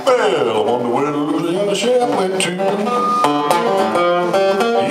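Steel-string acoustic guitar picked in a country style: a run of quickly changing plucked notes during an instrumental passage between sung lines.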